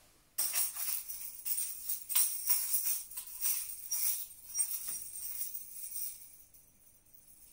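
Two handheld ring tambourines shaken, their metal jingles jangling in quick irregular shakes that start about half a second in and die away by about six seconds in.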